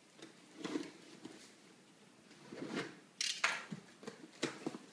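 Cardboard shipping box being cut open with a box cutter and handled: soft scrapes and rustles, with two sharper scraping sounds a little past halfway.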